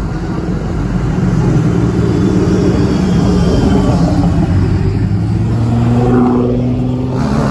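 Car engines and exhausts running loudly as cars drive past at close range. The engine note climbs in pitch near the end as one car accelerates.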